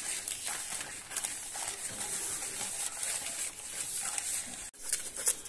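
Paper butter wrapper rustling and scraping as it is rubbed around inside a loaf tin to grease it.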